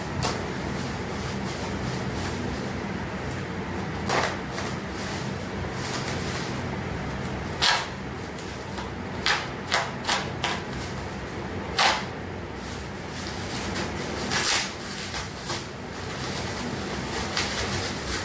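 Plastic wrapping being pulled off a new cricket bat: irregular crinkling and rustling with sharp crackles, over a steady low hum.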